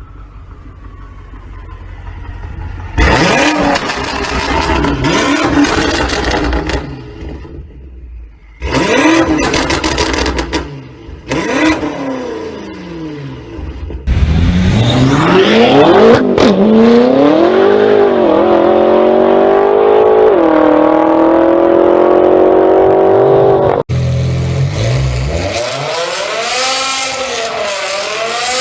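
BMW M5 engines revving hard in a run of short clips, the pitch sweeping up and down with each blip. From about halfway a longer pull holds a high, climbing engine note, and near the end the revs rise and fall again.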